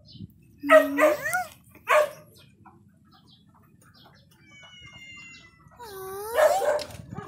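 A dog barking and yelping: a rising yelp and a short bark in the first two seconds, then a longer bending call about six seconds in.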